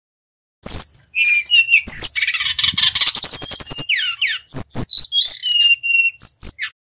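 Male brown-chested jungle flycatcher singing a fast, varied song of whistles, rapid trills and quick rising and falling sweeps, with one held whistle near the end. The song starts about half a second in and cuts off suddenly near the end.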